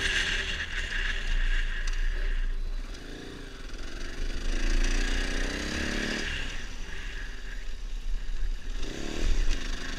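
Dirt bike engine heard from the rider's seat as the throttle is worked: the engine drops back about three seconds in, revs climb about four to six seconds in and then cut off sharply, and there is another short burst of revs near the end.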